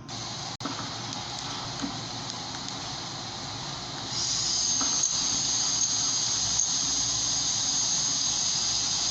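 Small camera drone being switched on: a steady hiss, then about four seconds in a high, steady two-toned whine starts and holds.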